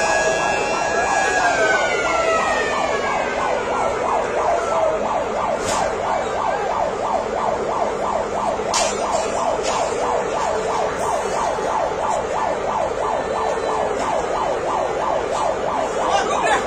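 Emergency vehicle siren. In the first few seconds a steady tone slides down in pitch, then the siren goes into a fast repeating warble for the rest, with a few sharp cracks in the middle.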